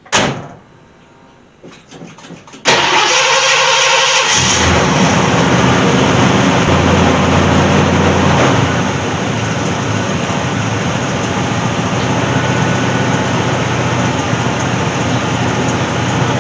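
A sharp thump, then a few clicks; about two and a half seconds in, a car engine is cranked by the starter, catches after about two seconds and settles into a steady idle.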